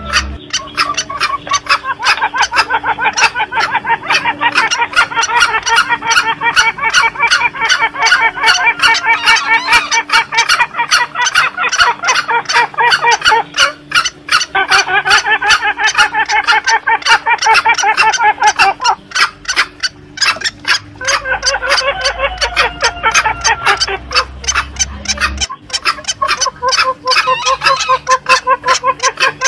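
Green junglefowl lure recording: a dense, fast run of clucking calls, about three or four a second, with calls at different pitches overlapping. There are brief gaps about halfway through and again about two-thirds through.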